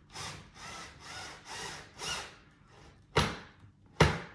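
A cordless drill working on the underside of an upturned wooden stool, in a run of five short rasping bursts about twice a second. Two sharp knocks follow near the end, louder than the bursts.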